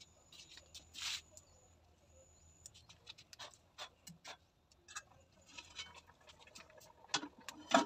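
Wood fire crackling under a cooking pot, with scattered small pops and ticks. Two louder knocks near the end as the metal pot lid is lifted.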